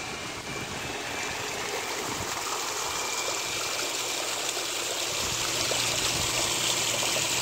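Water splashing and churning into a backyard saltwater pond where the pump's return flow pours in, a steady rush that grows a little louder as it goes, over a low steady hum.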